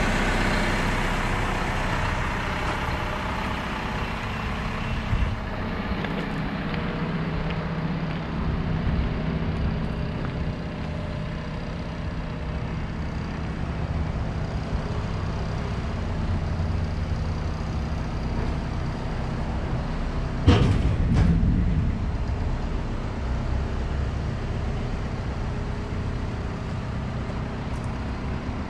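2016 Isuzu NRR box truck's four-cylinder turbodiesel idling steadily, with one sharp thump about two-thirds of the way through.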